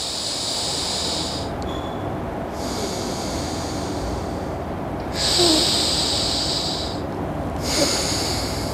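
A man's slow breaths hissing through the nose in nadi shuddhi, alternate-nostril breathing: four breaths of about two seconds each, drawn in through one nostril and let out through the other. The third breath is the loudest.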